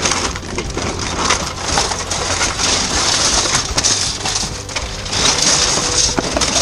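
Plastic packaging, cellophane bags and clear plastic pieces crackling and crunching continuously as a gloved hand rummages through them in a bin.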